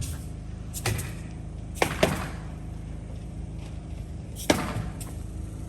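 A few sharp knocks, about a second apart early on and again once later, over a steady low hum.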